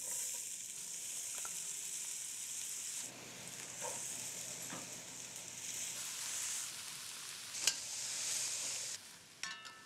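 Diced onion, carrot and celery sizzling in hot fat in a heavy pot over lowered gas heat, stirred with a wooden spoon, with a couple of light clicks of the spoon. The sizzle fades near the end.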